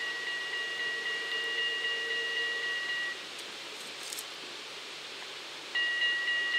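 Level-crossing style warning bells of a Dutch bascule bridge ringing with quick repeated strikes while the road barriers lower. They stop about three seconds in and start ringing again near the end.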